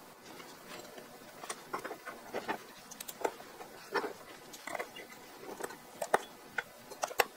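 Light, irregular clicks and taps of small metal parts being handled while a milling fixture is assembled on a wooden bench, with a hex driver turning small screws in the second half.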